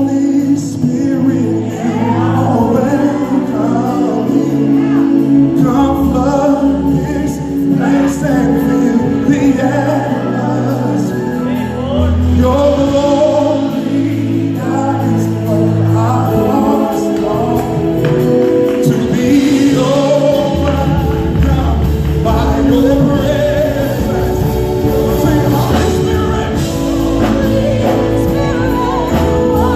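Gospel worship singing performed live: a male lead vocalist and a group of backing singers, over a band with a bass line holding long low notes.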